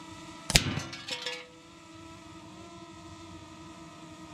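A sharp crack as an air-rifle pellet strikes an aerosol can, followed by a brief clatter of the metal cans tumbling onto the dirt. A steady faint hum runs underneath.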